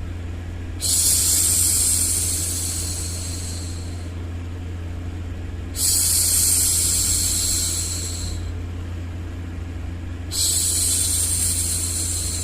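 A woman's long hushing 'shhh', three times about five seconds apart, each fading out, over a steady low white-noise hum.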